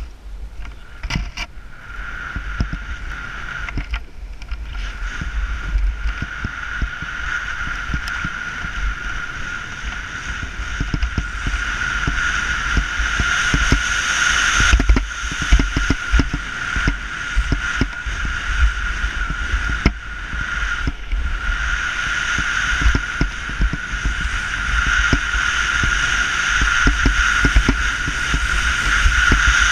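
Snowboard sliding and carving over snow: a continuous hiss and scrape with a low, gusty rumble of wind on the microphone. It grows louder as the ride goes on.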